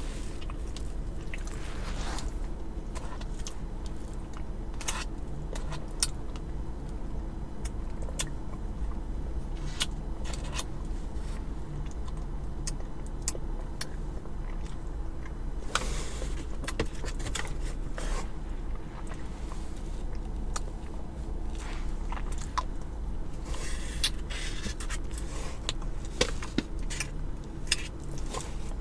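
Close-up eating sounds: a spoon scraping and clicking in a cup of Frosty, with some biting and chewing, over a steady low hum.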